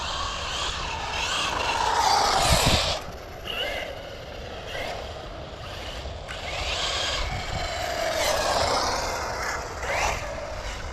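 Arrma Talion 6S EXB RC car's brushless motor whining on 6S power with the throttle limited to 75%, rising and falling in pitch as the car speeds up and slows down. It swells twice: around two to three seconds in and again from about seven to ten seconds in.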